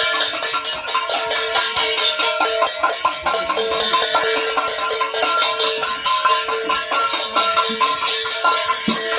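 Ritual percussion: a rapid, continuous rattling jingle with several steady ringing tones held above it.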